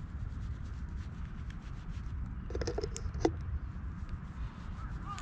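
Hand stroking a cat's fur close to the microphone: soft rubbing over a steady low rumble, with a brief cluster of small sounds ending in a sharp click about three seconds in.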